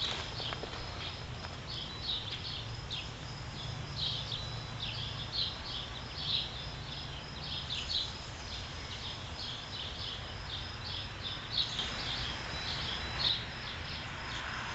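Opinel No 9 carbon steel blade being stroked back and forth on a leather strop, a light scratchy swish about twice a second, honing the new edge toward shaving sharpness.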